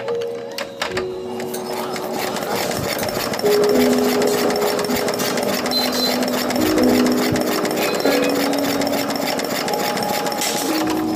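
Small single-cylinder Z170F diesel engine running, with a fast, even knocking beat, under background music.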